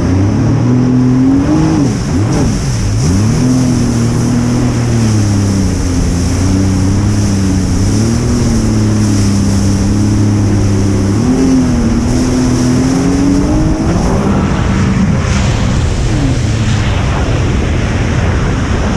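Jet ski engine running under throttle, its pitch dropping and coming back up about two seconds in, holding steady, then changing and fading about three-quarters of the way through into the wash of water and wind.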